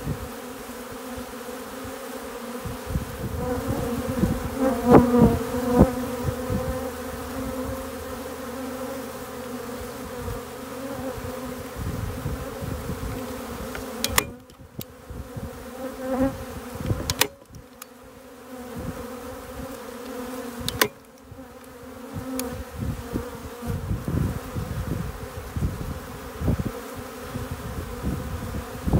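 A swarming honey bee colony buzzing densely at the hive entrance: the steady hum of thousands of wings, swelling as bees fly close past. Three sharp clicks come in the middle.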